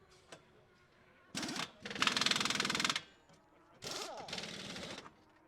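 Pneumatic impact wrench (pit-stop wheel gun) rattling in four bursts, spinning wheel nuts off and on. The bursts come in two pairs, a short one then a longer one. The loudest runs for about a second, starting about two seconds in.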